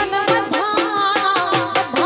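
Live Gujarati folk song: a woman's singing voice with sliding ornaments over a steady dhol beat, about four strokes a second, and Indian banjo (bulbul tarang) accompaniment.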